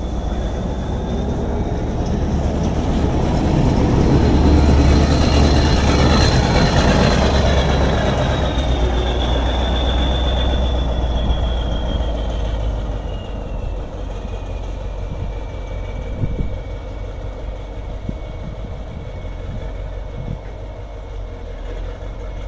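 Kirovets articulated tractor's diesel engine running under way as the tractor drives past and off, loudest about five seconds in and fading after that, with a thin high whine that slowly falls in pitch.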